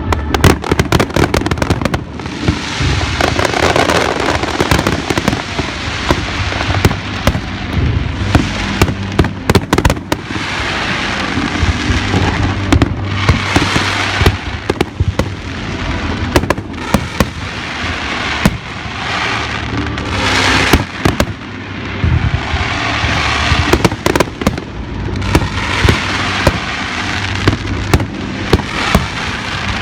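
Aerial fireworks bursting in rapid succession: sharp bangs come thick and fast throughout, with spells of crackling between them.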